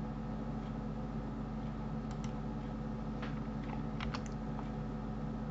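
A few computer keyboard key clicks, scattered, with a small cluster about four seconds in, over a steady low electrical hum.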